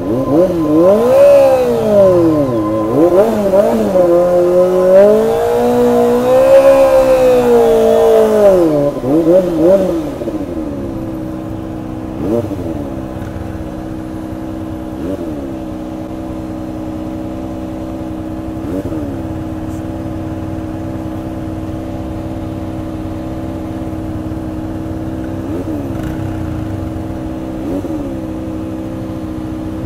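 Kawasaki ZX-25R's 249 cc inline-four engine revving up and easing off several times for about the first ten seconds, then settling to a steady idle. A few short throttle blips follow, and it revs again at the very end.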